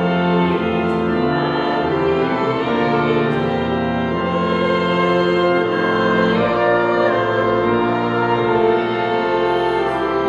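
Organ playing a slow hymn in long, held chords.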